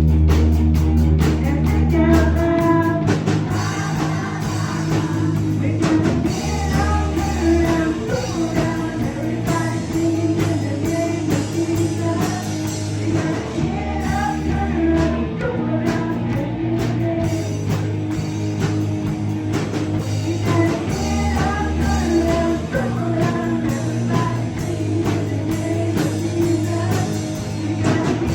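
A rock-style song with singing over guitar, bass and drums.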